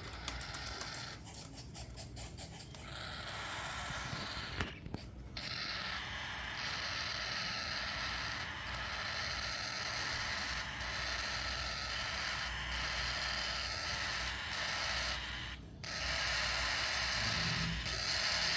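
Cockatiels chirping and calling together in a dense, continuous chatter, with a quick run of clicks in the first few seconds.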